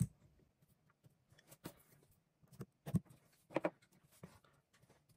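Scattered light clicks and knocks, about five in all, of small parts being handled and fitted by hand into an opened Makita GA5030R angle grinder's housing.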